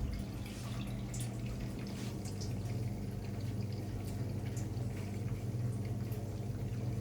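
Hoover 800RL top-loading washing machine draining: its pump motor hums steadily while drain water splashes and drips.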